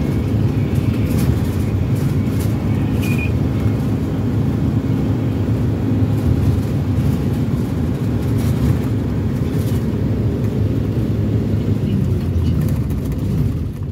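Steady low rumble of engine and road noise inside a moving minibus, with a few faint clicks or rattles in the first few seconds.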